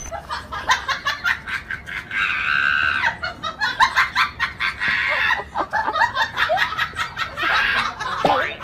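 Rubber chicken squeak toy squealing over and over as a dog bites and chomps on it, with a couple of longer drawn-out squeals in the first half.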